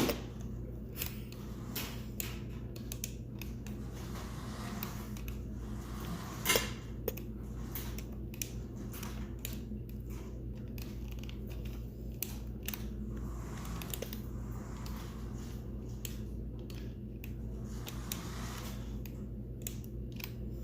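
Scattered small plastic clicks and taps from handling a toy RC truck and its remote, with one louder knock about six and a half seconds in, over a steady low hum.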